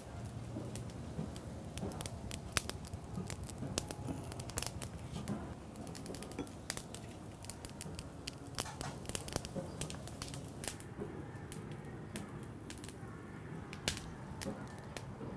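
Irregular sharp clicks and light crackling at a charcoal grill as raw pork skewers on lemongrass stalks are laid on a wire grill rack.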